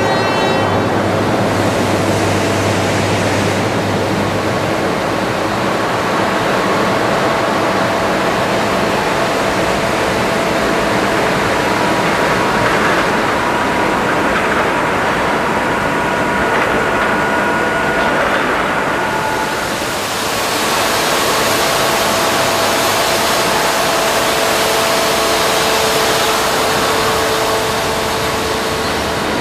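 Steady industrial rushing noise with several humming tones that come and go. There is a short dip about two-thirds of the way through, after which the hiss is brighter.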